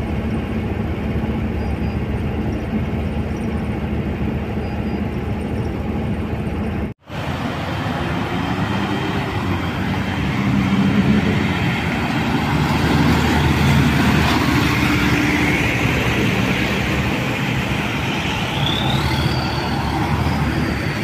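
Steady engine and road drone inside a moving minibus, which cuts off abruptly about a third of the way in; street traffic then takes over, with vehicles passing and the noise swelling and easing as they go by, and a short rising tone near the end.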